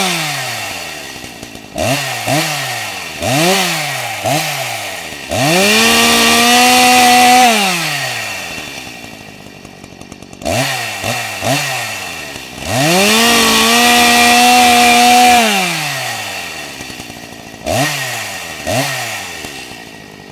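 Chainsaw engine being revved: quick throttle blips, and twice a longer full-throttle rev held for about two seconds, the pitch sliding back down toward idle after each.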